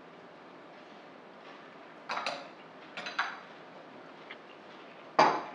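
Metal spoon clinking against a glass bowl while eating: two pairs of light clinks around the middle, and a louder clink near the end.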